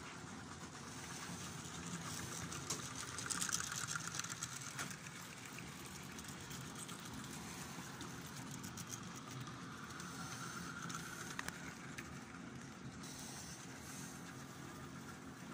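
Model train running past on a layout: a steady motor hum with wheels clicking over the track, loudest about three to four seconds in.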